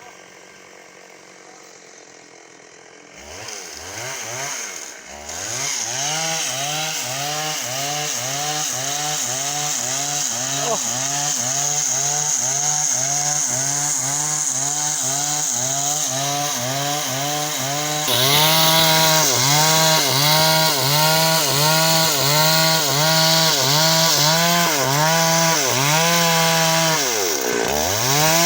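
Chainsaw coming in about three seconds in and cutting timber, its engine pitch dipping and rising in a steady rhythm a little under twice a second as it bites into the wood. It gets louder about two-thirds of the way through and drops briefly near the end before picking up again.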